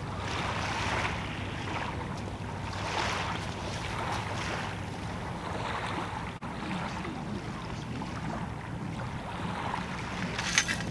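Small waves washing on a shingle shore, with wind on the microphone and a low steady hum in the background. A short burst of sharp clicks near the end.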